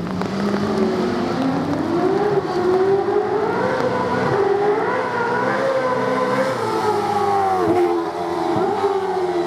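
Mercedes V8 Supercar's 5.0-litre flat-plane-crank M159 V8 running hard. The engine note climbs steadily for about four seconds, holds high with two quick dips near the end, then starts to fall away.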